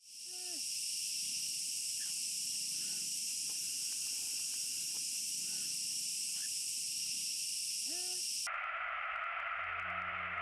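Night-time ambience: a steady high insect-like chorus with a few faint short hooting calls that rise and fall. About eight and a half seconds in it cuts abruptly to a lower steady buzz, and near the end a low falling tone sounds.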